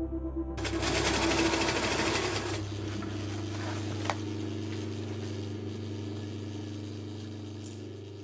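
Sewing machine stitching fabric in one fast run of about two seconds, over soft ambient music that keeps playing and slowly fades.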